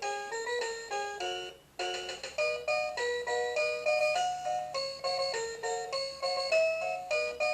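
VTech Winnie the Pooh Roll 'n Learn Tree toy playing a simple electronic melody of quick, separate synthesized notes. It breaks off briefly about two seconds in, then starts a new phrase.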